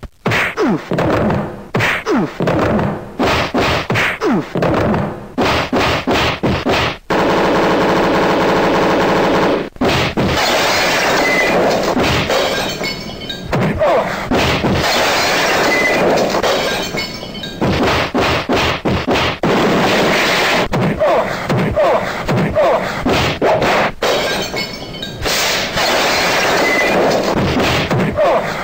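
A loud, dense run of whacks, thuds and crashes, with a steady pitched tone for a few seconds about seven seconds in, then a noisy clatter.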